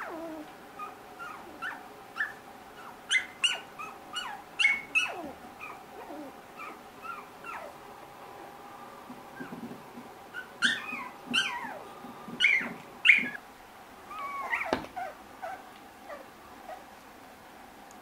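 Three-week-old Australian Labradoodle puppies whimpering and yipping: many short, high calls, several sliding down in pitch, loudest in two clusters a few seconds in and past the middle.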